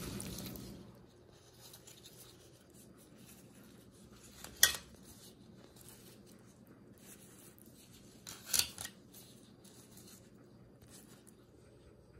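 Two short clinks, about four and eight and a half seconds in, as dishware is handled on a table. Faint rustling of handling comes between them.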